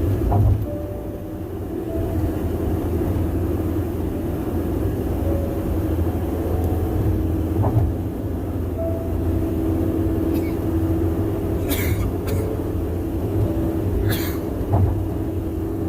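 Car tyre and road noise at highway speed: a steady low drone with a hum near 300 Hz, which the uploader finds loud, and a few soft thumps from the road. There are several brief high hisses near the end.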